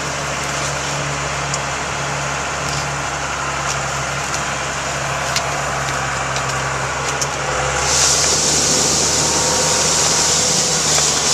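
Engine of a mechanical cherry tree-shaker harvester running steadily. A loud hiss joins in about eight seconds in.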